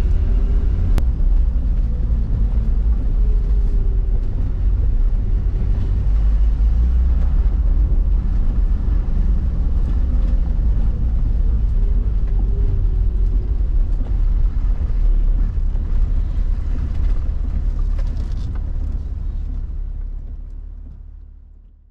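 Toyota LandCruiser Troop Carrier driving on a wet dirt road, heard from inside the cab: a steady deep rumble of engine and tyres. It fades out near the end.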